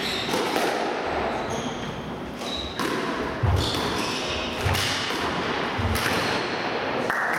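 Squash rally: the ball cracking off rackets and walls, with heavy thuds of the players' footwork on the wooden court floor and short squeaks of court shoes.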